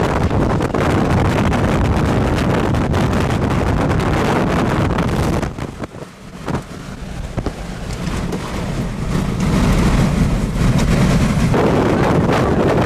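Strong wind buffeting the microphone with a loud, steady rush; it drops away sharply about halfway through, then builds back to full strength.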